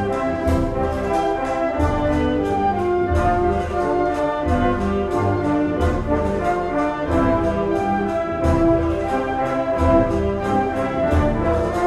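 Municipal concert band of brass, woodwind and percussion playing a Spanish processional march, with full brass chords over a steady drum beat.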